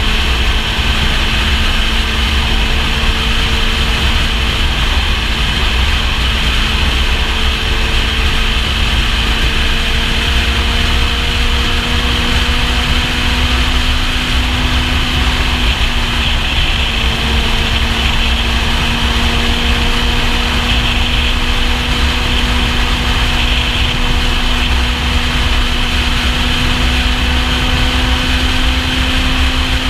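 Kawasaki Z750's inline-four engine running steadily at highway speed, its pitch creeping slowly upward as the bike gains speed, under heavy wind rush on the microphone.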